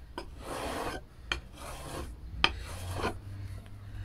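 Steel chisel back rubbed back and forth flat on a DMT DuoSharp diamond whetstone, a gritty scraping in about three strokes, each marked by a sharp click of the steel on the plate. This is the flattening stroke that rubs the burr off the freshly ground edge.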